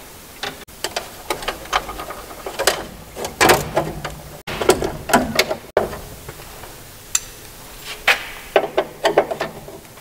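Irregular clicks, knocks and short metallic scrapes of stiff copper wires being bent and pushed into the ground bar of a metal breaker panel, fitting the ground and neutral conductors.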